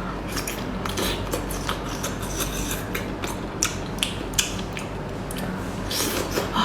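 Close-up chewing and biting of a whole octopus: an irregular run of short clicks and smacks from the mouth.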